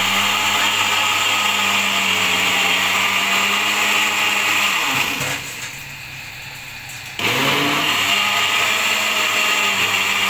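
Electric countertop blender blending a milkshake, its motor whining steadily at full speed. About five seconds in, the motor slows with a falling pitch and drops to a lower hum as the dial is turned. About seven seconds in it spins back up with a rising pitch to full speed.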